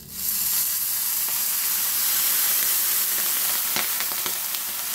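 Water poured onto a hot ridged grill pan sizzling loudly as it hits and boils off into steam; the sizzle starts suddenly and keeps on steadily.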